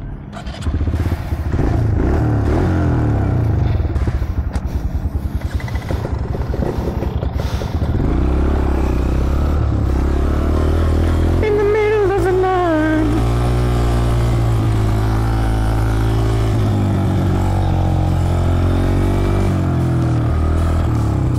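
Honda CRF125F's small single-cylinder four-stroke engine pulling away and riding, heard close up from on board. The engine note steps through several gear changes and drops briefly about twelve seconds in before holding steady.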